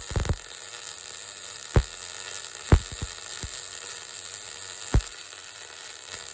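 Electric welding arc crackling and sizzling steadily, with a handful of sharp pops of spatter along the way.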